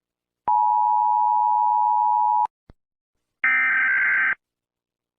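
Emergency Alert System attention signal: a steady two-pitch electronic tone held for about two seconds and cut off sharply. A short click follows, then about a second of harsh, buzzing digital data tones like an EAS header burst.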